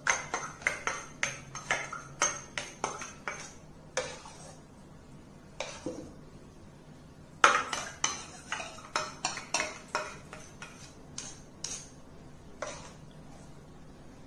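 Steel spoon tapping and scraping against a small stainless steel bowl as thick mango pulp is scooped out into a steel pan: quick clinks about two to three a second, a short lull, then a second run opening with the loudest clink and thinning out near the end.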